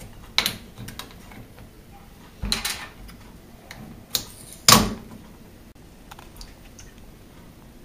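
A cardboard mango juice carton being handled and its plastic spout cap opened: a few sharp clicks and crackles, the loudest about five seconds in.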